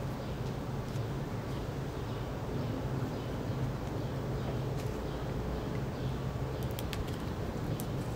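Steady low outdoor background hum, with a few faint clicks late on from handling the webbing and its metal clip on the chair frame.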